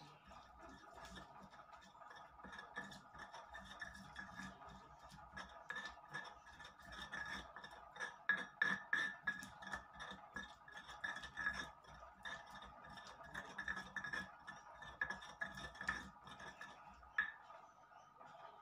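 Stone pestle grinding and scraping chili sambal in a stone mortar: irregular gritty scrapes and light knocks, busiest in the middle, with one sharper click near the end, over a faint steady hum.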